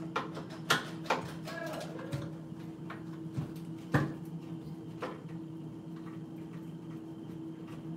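About half a dozen scattered clicks and knocks of a hand screwdriver working the screws of a microwave's metal casing, over a steady low hum.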